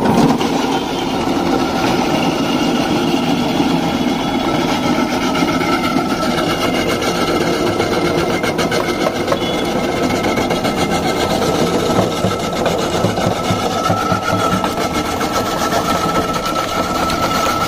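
Motor-driven ice crusher running steadily and grinding block ice, with crushed ice spilling out. A faint steady whine runs under the grinding and grows more noticeable in the second half.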